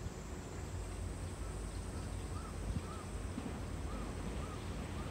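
A bird calling in the distance: five short, thin, arching notes spaced about half a second to a second apart, starting about two seconds in, over a steady low outdoor rumble.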